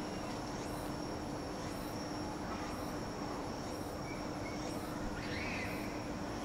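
Evening insects calling: a steady high trill with a short high chirp repeating about once a second, over a constant low hum and low rumble of distant town noise. A brief higher call comes about five seconds in.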